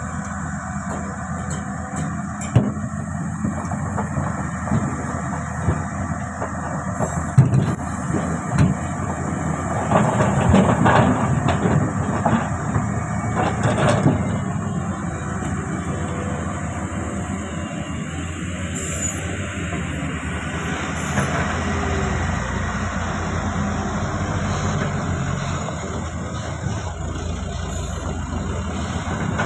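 Komatsu hydraulic excavator's diesel engine running steadily, with a few sharp knocks and a louder, rougher stretch about ten seconds in as it works with large boulders.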